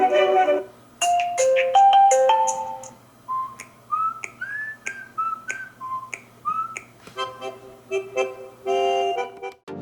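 Huawei Mate 10 Pro ringtones playing one after another. A short chiming melody gives way to a run of short rising whistle-like chirps with light clicks, then a repeating chord pattern that cuts off suddenly near the end.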